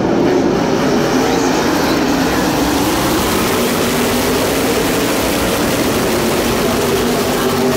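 A pack of NASCAR race trucks with V8 engines passes at speed, a loud, steady mass of engine noise.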